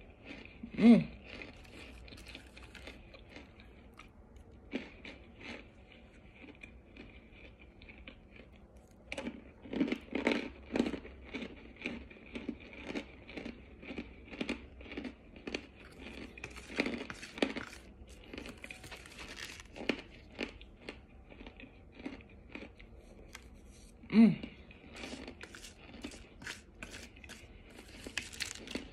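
Crunching and chewing of powdery cornstarch chunks, a dense crackle of small dry crunches that comes and goes. Two loud thumps stand out, about a second in and again near the end.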